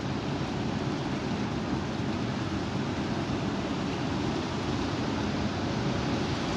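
Strong wind blowing steadily, heard as a constant low rumbling rush with wind buffeting the microphone.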